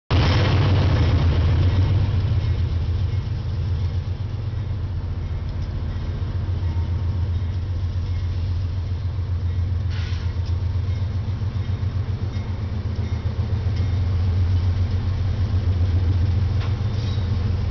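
Diesel locomotives of a freight train running as they roll past, led by a GE ES44AC with its GEVO V12 engine: a deep, steady, pulsing engine rumble that grows louder again as the lead unit comes alongside near the end. A single sharp knock sounds about ten seconds in.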